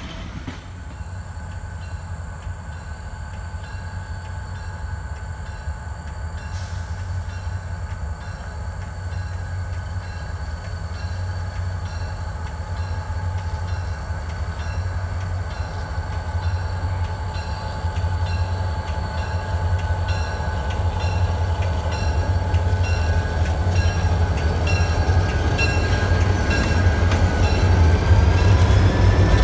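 A lashup of diesel-electric locomotives led by Santa Fe 92 approaching and passing at close range, their engines rumbling and growing steadily louder, with steady tones above the rumble. From a few seconds in, a high note repeats at regular short intervals.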